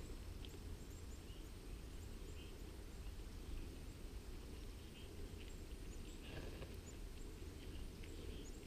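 Quiet outdoor ambience: a steady low rumble of wind on the microphone, with faint scattered high ticks and small chirps.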